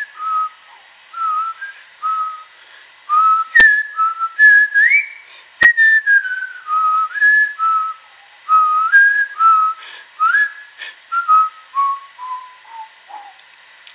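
A man whistling a tune: a melody of short notes that wanders up and down, then steps down note by note near the end. Two sharp clicks, about two seconds apart, come a few seconds in.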